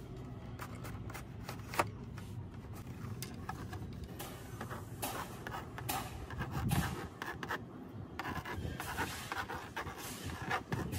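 Plastic magnetic pen scratching across the screen of a magnetic drawing slate in short strokes as words are written, with a single sharp click about two seconds in.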